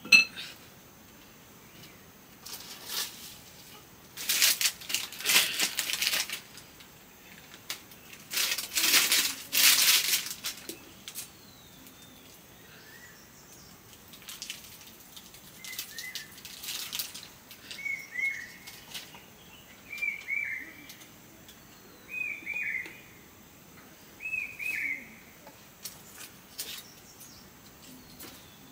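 Several bursts of rustling noise in the first half, then a bird repeating one short call note about every two seconds, five or six times.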